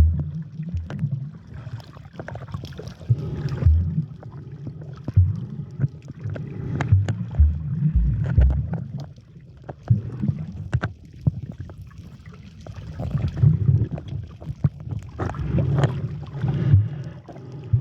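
Water sloshing and knocking against a camera held by a snorkeler, with irregular low thumps and scattered clicks that swell and ease every few seconds.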